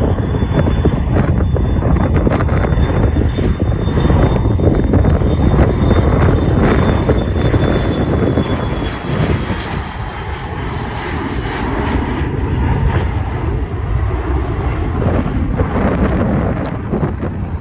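Airliner's engines at takeoff power as it climbs away: a steady loud rumble with a thin high whine that slowly drops in pitch and fades over the first several seconds.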